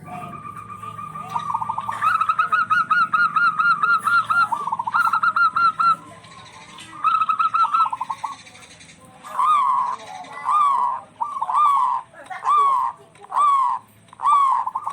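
Zebra doves (local perkutut) calling back and forth. First comes a rapid trilled run of cooing notes, then near the end a string of separate rising-and-falling coos about one a second.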